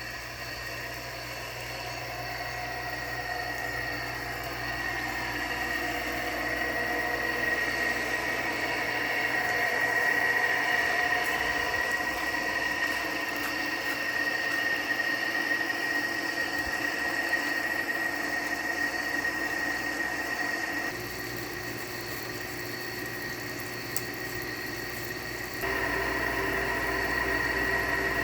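GE window air conditioner running, with a steady high-pitched whine over the fan and compressor hum from fan-motor bearings the owner calls shot. The sound drops in level about two-thirds of the way through and comes back up near the end.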